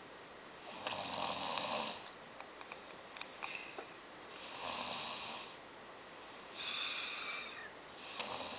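Snoring in slow, regular breaths, about one every two seconds, some with a thin high whistle riding on them.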